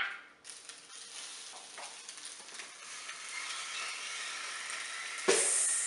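Boiled pierogies sizzling on the hot plates of a Belgian waffle maker, a steady hiss that starts abruptly about half a second in. A brief, louder sound comes about five seconds in.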